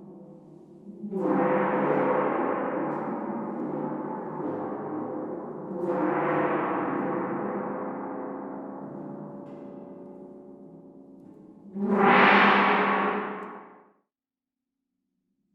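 Bergtagna 24 Note Cristal instrument sounding gong-like washes of many ringing tones: one swells up about a second in, another about six seconds in, each fading slowly; a third, brighter and loudest, swells about twelve seconds in and is cut off two seconds later, leaving silence.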